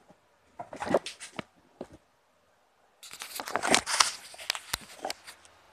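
Rustling and crackling handling noise as a hand-held camera is moved, in two bursts with scattered clicks, the first from about half a second in and the second, louder one from about three seconds in.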